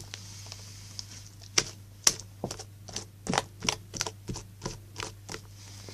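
Hand-worked slime making sharp, irregular clicking pops, a dozen or more, starting about a second and a half in.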